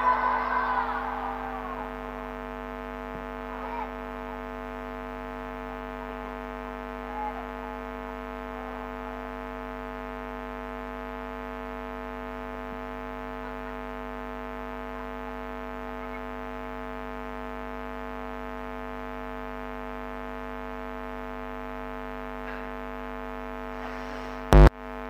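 Steady electrical hum and buzz from the PA sound system between recited passages, after the last recited note fades away with echo over the first two seconds. Near the end a single short knock as the handheld microphone is handled.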